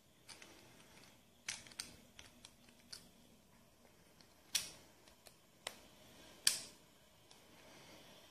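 Small metal parts of a baitcasting reel's spool clicking and tapping as its retaining pin is worked halfway into the spool shaft. The clicks are sharp and irregular, with two louder ones in the second half.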